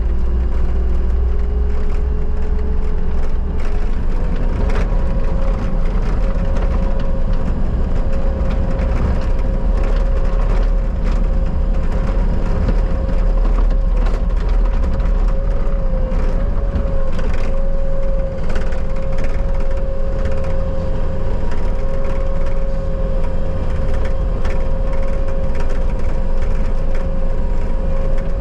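Bobcat skid steer running under load, its engine and hydraulic whine speeding up about four seconds in and then holding steady, with brush and wood cracking and splintering as the grapple crushes and moves it.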